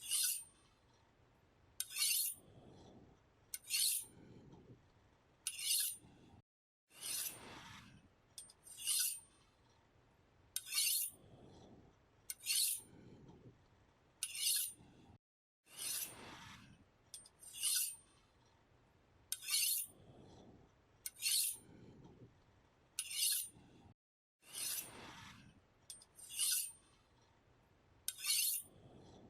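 A knife blade being sharpened: about fifteen short rasping, scraping strokes of metal, roughly one every two seconds. About every nine seconds comes a longer stroke that slides down in pitch.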